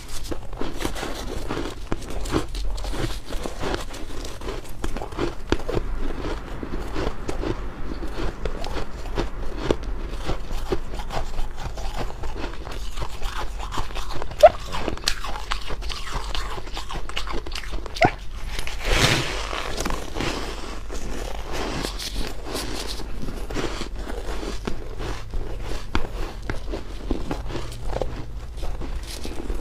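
Ice being bitten and chewed close to the microphone: a steady run of crunching and crackling, with a louder crunch about two-thirds of the way through. A low hum runs underneath.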